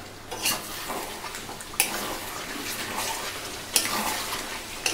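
Duck curry sizzling in its own rendered fat in a kadai as it is stirred, with two sharp knocks of the spatula. The melted fat has risen as oil, the sign that the kosha stage of frying the masala is nearly done.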